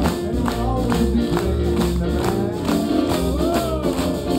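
Upbeat band music with a steady beat of about two strokes a second over sustained chords.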